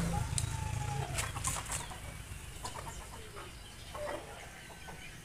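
Chickens clucking and calling, with a few short bird chirps scattered through.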